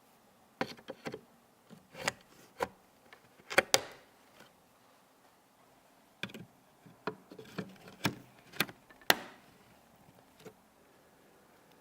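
Irregular small clicks and light knocks of computer parts and hardware being handled and fitted during a PC assembly, loudest about three and a half seconds in and again near nine seconds.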